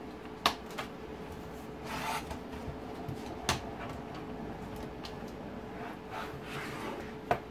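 Plastic front bezel and lens of an Audi TT Mk1 instrument cluster being prised off its plastic housing by hand: plastic scraping and rubbing, with three sharp clicks of clips letting go, the loudest about half a second in and the last near the end.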